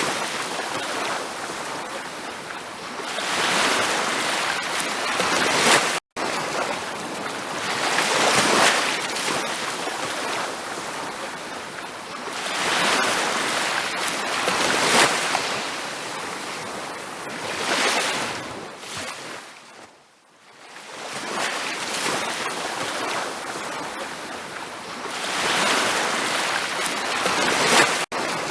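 Ocean waves breaking on a beach, the surf swelling and falling back every few seconds. The sound cuts out for an instant twice.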